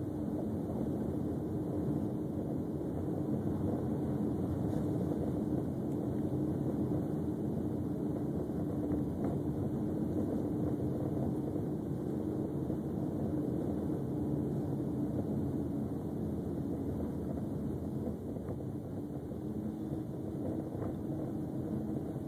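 Steady drone of a car driving along at an even speed, with engine hum and tyre and road rumble heard from inside the cabin.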